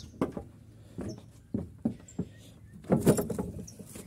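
Irregular knocks and thumps from handling and moving around a wooden corral gate and fence, with a louder rattling clatter about three seconds in.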